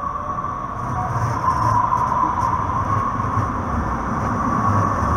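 A Breda light rail vehicle rolling past on the rails. Its low rumble rises about a second in as it comes close, with a steady high tone throughout and a few light clicks.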